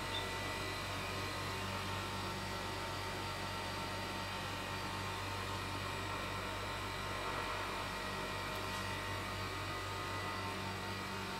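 Steady electrical mains hum with a background hiss, several even tones held without change.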